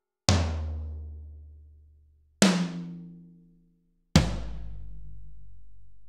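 Three separate drum hits about two seconds apart, each a sharp strike followed by a low, pitched tone that slowly fades. The second hit is higher in pitch and dies away sooner; the third is the deepest and is still ringing at the end.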